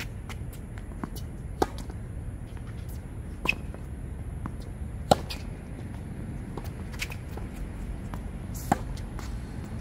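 Tennis rally: tennis balls struck by rackets, five sharp hits roughly every two seconds as the players trade shots, over a steady low background rumble.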